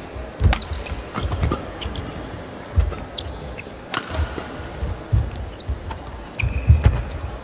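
Badminton rally: a string of sharp racket strikes on the shuttlecock about once a second, with heavy footfalls and lunges thudding on the court mat and a few short shoe squeaks.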